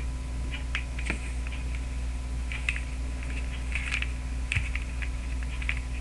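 A 3x3 Rubik's Cube being twisted quickly by hand: irregular clusters of light plastic clicks and clacks as its layers are turned. A steady low hum runs underneath.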